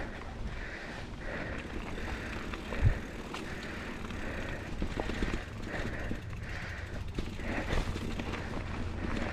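Scott Spark 950 mountain bike rolling over dirt singletrack, with a steady low rumble and rattle from the tyres and bike, and the rider's heavy breathing in quick, regular puffs. One thump about three seconds in.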